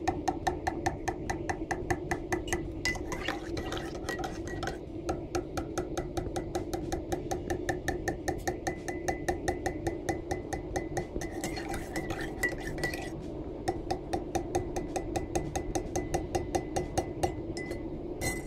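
Metal teaspoon tapping rapidly on the bottom of a ceramic mug of freshly mixed instant coffee, about five taps a second, each tap ringing with a hollow tone. The tone's pitch rises over time as the bubbles released at the coffee granules float out of the liquid: the hot chocolate effect.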